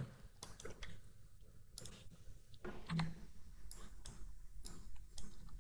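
Faint, irregular clicks of a computer mouse and keyboard being operated.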